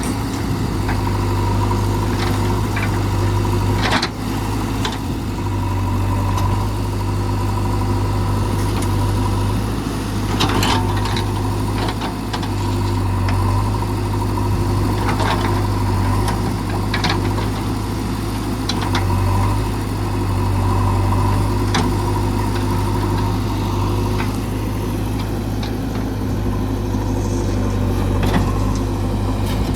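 JCB 3DX backhoe loader's diesel engine running steadily under work, with sharp knocks and cracks every few seconds.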